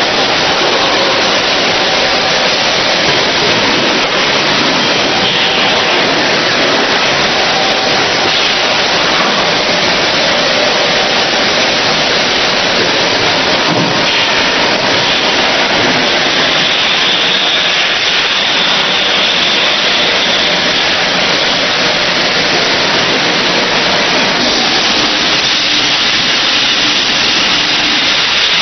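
Bottled mineral-water packaging machine running: a loud, steady hiss with no clear rhythm.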